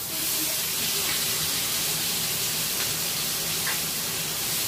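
Bone-in ribeye sizzling in butter in a hot cast iron skillet as it is basted, a steady hiss with a few faint clicks.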